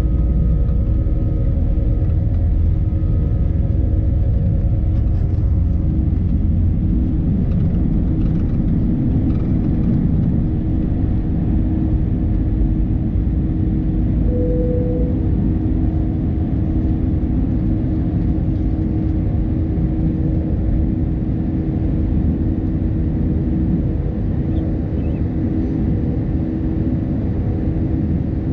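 Airbus A320's IAE V2500 turbofan engines running at takeoff thrust, heard from inside the cabin over the wing: a loud, steady noise with a droning hum. A heavy low rumble from the wheels on the runway eases a few seconds in as the jet lifts off and climbs. A brief steady tone sounds about halfway through.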